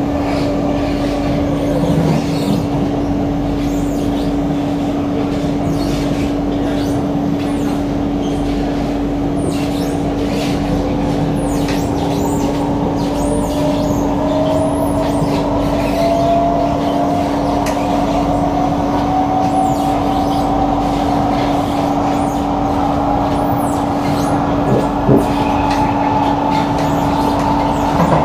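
Singapore MRT electric train running, heard inside the carriage: a steady rumble with a constant hum, and from about ten seconds in a motor whine that climbs slowly in pitch as the train gathers speed, with scattered light clicks.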